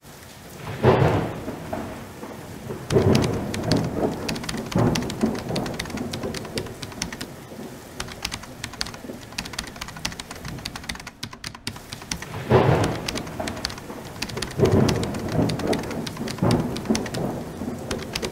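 Thunderstorm: steady rain with several rolls of thunder, the loudest about a second in and again about twelve seconds in.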